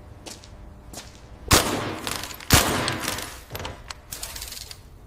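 Two loud sharp bangs about a second apart, each trailing off in a noisy rush, with fainter knocks before and after.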